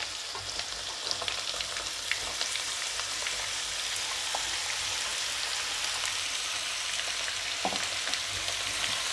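Cut pumpkin pieces dropping into hot oil and sizzling, the sizzle building over the first couple of seconds as more pieces go in and then holding steady. Scattered light clicks and scrapes come from the pieces and the slotted spatula against the pan.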